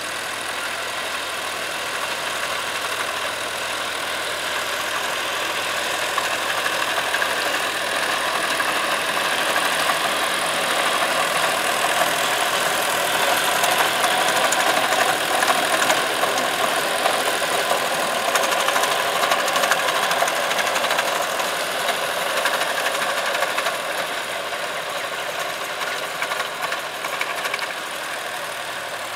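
John Deere 5310 tractor's three-cylinder diesel engine running steadily under load while it drives a rotavator through the soil. The sound grows louder toward the middle as the tractor passes close, then fades again.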